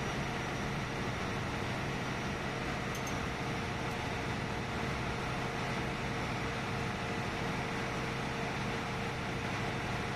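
Steady, unchanging drone of a ship's engine-room machinery, a constant hum over a low rumble.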